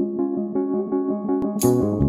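Background music: a keyboard plays a steady run of notes, and about a second and a half in a deep bass and a sharp, crisp high beat join in.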